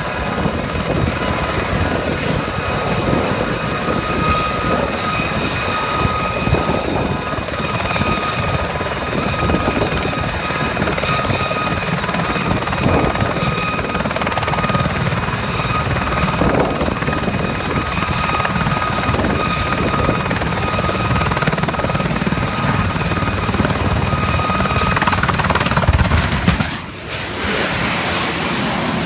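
Aérospatiale Gazelle helicopter hovering close by: loud steady rotor noise with a constant high turbine whine. About 26 seconds in the sound surges and breaks off, then a high whine falls in pitch, as the helicopter crashes into a building and its turbine runs down.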